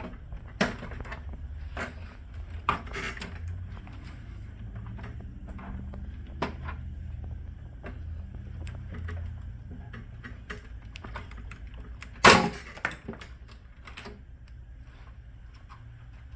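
Scattered plastic clicks and knocks as a laser printer's rear cover is pried loose with a flathead screwdriver, the loudest clack about twelve seconds in, over a steady low hum.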